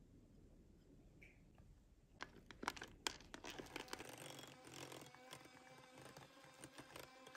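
Quiet low hum, then a few sharp clicks about two to three seconds in, and from about three seconds in an electric hand mixer running as it beats matcha powder into buttercream.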